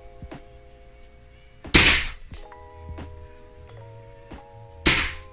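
Two shots from a Daisy Red Ryder lever-action spring-powered BB rifle, about three seconds apart, each a single sharp crack that is the loudest thing heard. Quiet background music with held notes plays throughout.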